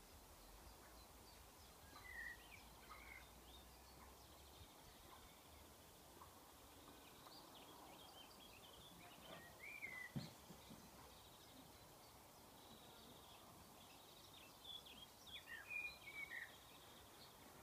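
Faint birds chirping outdoors: scattered short calls a few seconds apart, with a busier cluster near the end, over a quiet background hiss. A single soft tap comes about halfway through.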